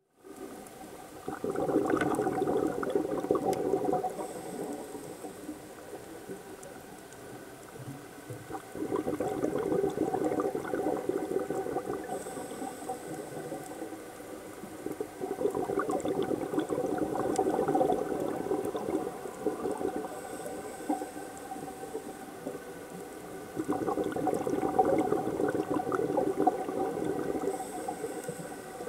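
Scuba diver breathing through a regulator underwater: four long bursts of exhaled bubbles, roughly seven seconds apart, each followed by a faint hiss of the next inhale.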